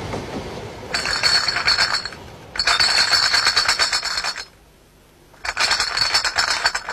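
Glass bottles rattling and clinking in carried crates. The sound comes in three bursts of one to two seconds each, with short pauses between.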